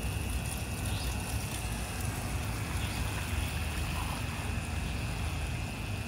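Steady low rumble and hiss of a city waterfront, with a thin, steady high whine and a few faint chirps.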